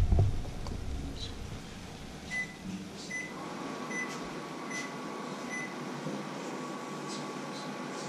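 Electronic appliance beeps, five short evenly spaced ones under a second apart, and from a few seconds in a kitchen appliance running with a steady hum and a thin whine.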